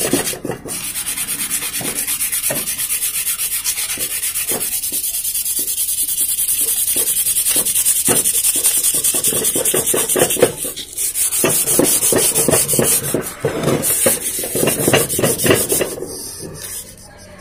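150-grit sandpaper rubbed by hand in quick back-and-forth strokes over the metal heating plate of a tyre-puncture vulcanizing machine, scouring off stuck-on tube rubber and grime. The rubbing breaks off briefly about eleven seconds in and fades near the end.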